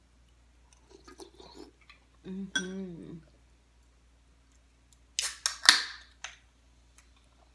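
Aluminium soda can (Sunkist) opened about five seconds in: a sharp crack of the tab and a short burst of fizzing hiss, the loudest sound here. Before it, chewing and a brief closed-mouth hum.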